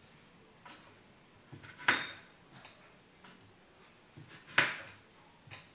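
Knife splitting lemongrass on a wooden cutting board: a few light taps and two louder knocks of the blade on the board, about two and a half seconds apart.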